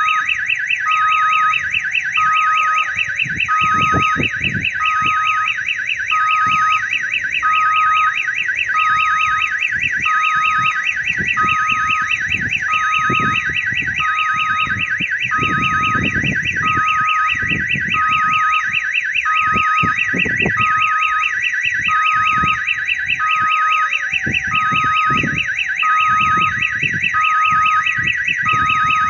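Electronic warning siren of a railway level crossing sounding for an approaching train: a rapid warble under a high beep that repeats a little faster than once a second, with lower notes in a tune-like loop like an odong-odong kiddie-ride siren. Low rumbles come and go underneath.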